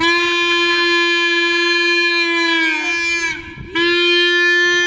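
Yellow plastic stadium horn blown in two long, steady, loud blasts, with a short break about three seconds in.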